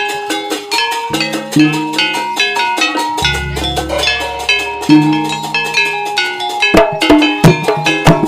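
Instrumental jaranan music: struck pitched percussion, drums and gong-like tones played in a fast, even rhythm, with a deep low tone for about two seconds near the middle.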